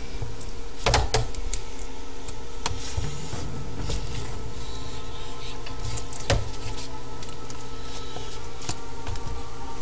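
A metal spoon stirring and scraping thick, sticky slime of PVA glue and liquid detergent in a container. The spoon clicks against the container a few times, most sharply about a second in. A steady hum runs underneath.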